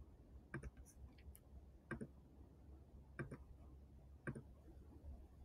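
Faint computer mouse clicks, about four of them roughly a second apart, over a low, steady room hum.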